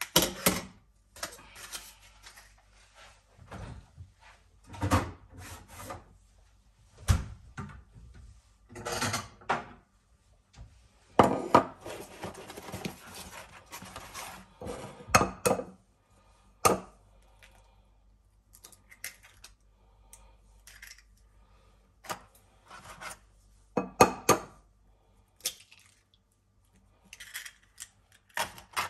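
Kitchen handling sounds: a run of separate clinks, knocks and taps, with a stretch of rustling packaging part way through, as a butter pack is handled, a paper-pulp egg carton is opened and eggs are tapped on a bowl and cracked into it.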